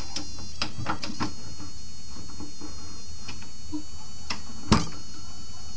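A steady high-pitched electric whine, with a few light clicks in the first second and a sharper knock about three-quarters of the way in, as a wood blank is fitted into the inside jaws of a wood-lathe chuck.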